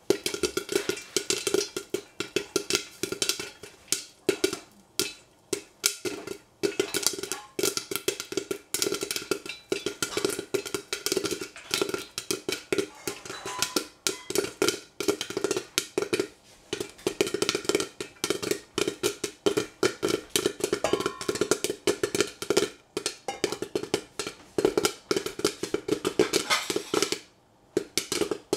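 Popcorn kernels popping fast inside a lidded stainless-steel saucepan: a dense run of sharp pops that ping against the pot and lid, which ring with each hit. There is a brief lull near the end.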